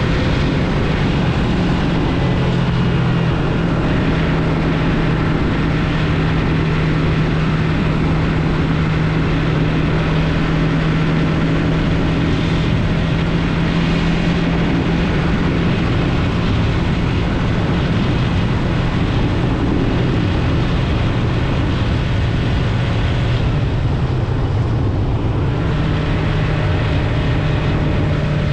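Yamaha MT-03 motorcycle engine running at a steady pace under way, over rushing wind and tyre noise. The engine note holds steady and shifts slightly near the end.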